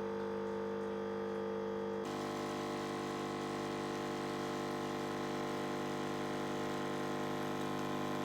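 Steady machine hum of several held tones, which switches abruptly to a different steady hum about two seconds in.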